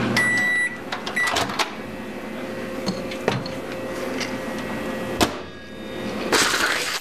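Microwave oven humming, then cutting off, with its high beeps near the start and about a second in. Clicks and knocks follow as the door is opened and the food is handled.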